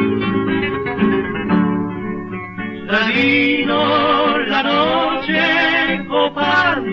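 Two acoustic guitars playing a zamba on an early 78 rpm record, with a male vocal duo coming in singing about three seconds in. The recording is thin and dull, with nothing above the upper midrange.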